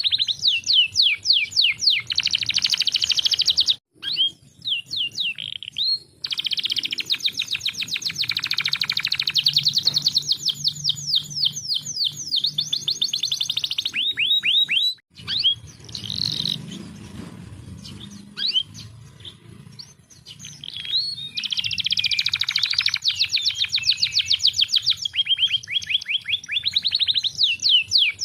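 Domestic canary singing long, rapid trills and rolling runs of high notes. The song cuts off abruptly twice and goes softer and sparser for a few seconds in the middle before the full trilling resumes.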